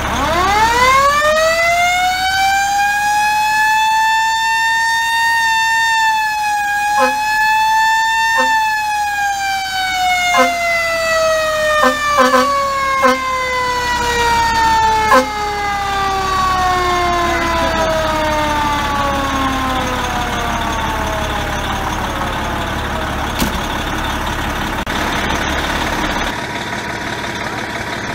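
Fire truck siren winding up to a high wail over about five seconds, holding briefly, then slowly winding down over some twelve seconds. While it sounds, the truck's air horn gives about eight short blasts, several in quick succession. The truck's engine idles underneath.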